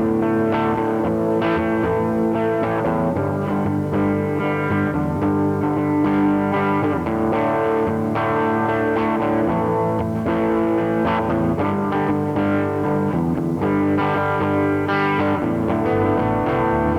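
Instrumental music led by guitar: plucked notes over held, sustained tones, changing every second or so.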